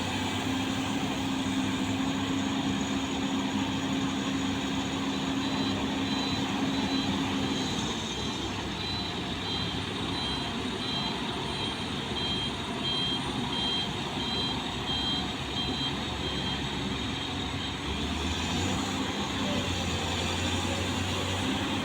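Bulldozer's diesel engine running steadily, its note dropping about eight seconds in and picking up again near the end. Short high-pitched beeps repeat through the middle stretch.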